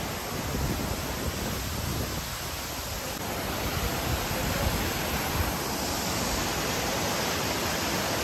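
Steady rush of a small waterfall pouring over rocks into a pool.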